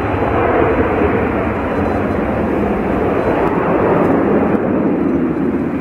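Jet airliner engines, a loud, steady rushing noise as the plane passes.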